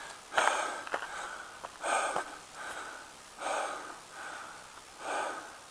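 Heavy breathing of a runner on a steep mountain trail: hard, noisy breaths about every second and a half.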